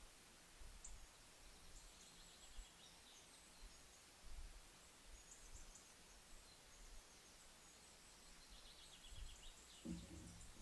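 Faint natural background with distant birds chirping in short trills several times over a low rumble, and a brief duller sound near the end.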